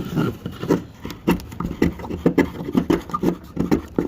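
Leatherman Wave's straight blade scraping and shaving curls off a stick of old fatwood, a run of short cutting strokes about two or three a second.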